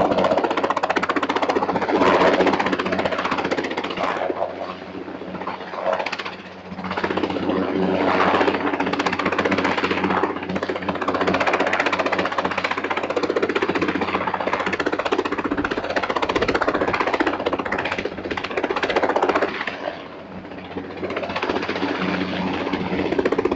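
Helicopter hovering overhead with a heavy load on its hook line: its rotor blades beat in a rapid, steady chop over a steady engine drone. The loudness swells and fades, dipping briefly twice.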